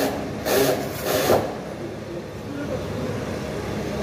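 Worksite background: a steady low hum with two short hissy, scraping noises about half a second and a second in.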